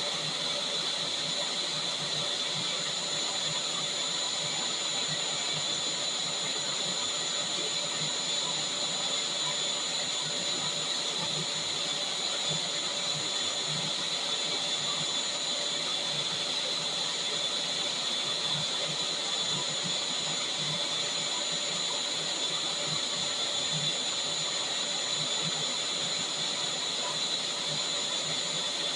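Vacuum cleaner running steadily: an even rush of air with a constant high motor whine.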